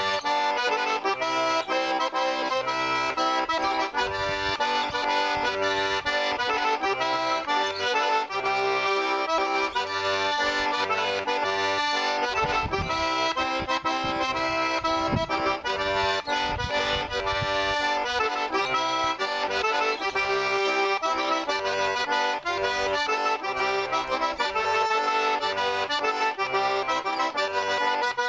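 Background music led by accordion, in a traditional style, with a steady bass beat.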